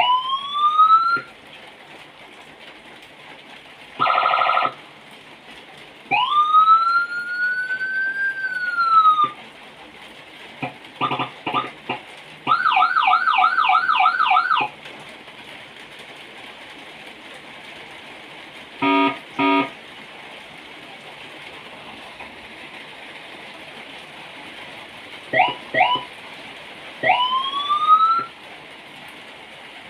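Whelen electronic siren, reprogrammed for six tones, sounding one tone after another in short loud bursts with pauses between. There are rising whoops, a brief buzzing horn tone, a slow wail that climbs and falls, quick blips, a fast warbling yelp, and a short pulsing two-note tone, with more short whoops near the end.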